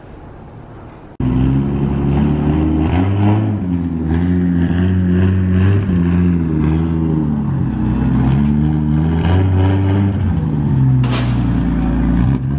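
Car engine revving in repeated rises and falls of pitch, starting abruptly about a second in, with a short sharp burst near the end.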